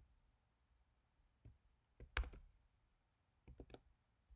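A few separate keystrokes on a computer keyboard, with near silence between them: one faint press, a short cluster about two seconds in that holds the loudest click, and another short cluster near the end.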